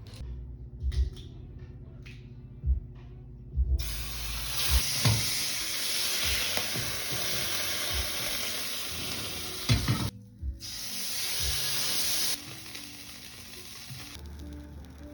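Food sizzling as it cooks, a dense hiss that starts about four seconds in, breaks off briefly and then fades, with a few sharp knocks of utensils or cookware.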